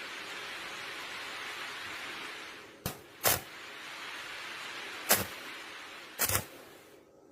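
Welding arc on thin 0.8 mm hollow steel tube, hissing steadily, with four loud sharp cracks in the second half. The hiss cuts off shortly before the end.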